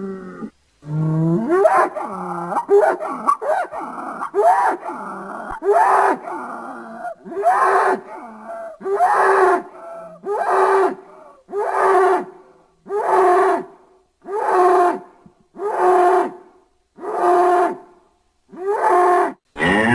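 Designed dinosaur sound effect for Kritosaurus, a duck-billed hadrosaur: a quick run of short pitched grunting calls, then about ten similar calls repeated at an even pace, roughly one every second and a half.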